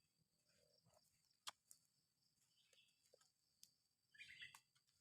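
Near silence: faint outdoor ambience with a few small, sharp clicks and some faint chirps.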